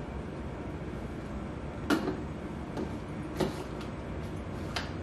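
Green beans dropped by hand through a plastic canning funnel into a glass jar: a few soft, separate knocks and clinks over a low steady hum.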